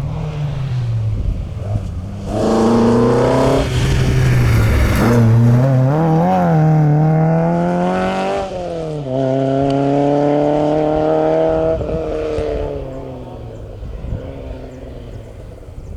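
Historic rally car engine accelerating hard past, its pitch climbing through the revs and dropping sharply at two gear changes, then holding steady before fading away near the end.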